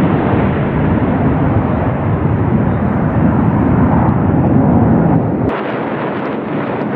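Loud, steady jet roar of the Blue Angels' F/A-18 Hornets flying over in diamond formation. About five and a half seconds in, the deep low rumble drops away abruptly and a thinner roar goes on.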